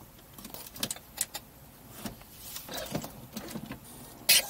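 Scattered clicks and light rattles from cockpit switches and controls being handled in a Cessna 172 during the pre-start checklist, with the engine not yet running. There is a sharp knock near the end.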